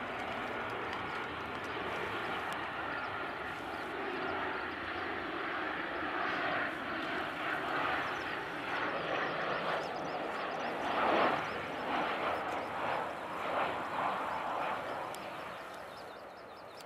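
Twin jet engines of a Boeing 737 airliner on final approach to land, a steady jet noise that grows louder and uneven as the plane passes close, then fades near the end as it reaches the runway.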